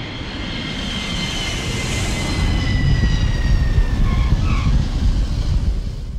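Airplane flyby sound effect: a jet rumble that swells and fades away, with a high whine sliding slowly down in pitch as it passes.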